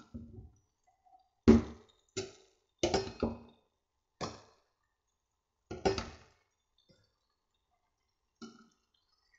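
A steel spoon clinks against a stainless steel pot as the dal is stirred and scooped in. There are about seven sharp, ringing clinks, spaced unevenly, and the loudest comes about a second and a half in.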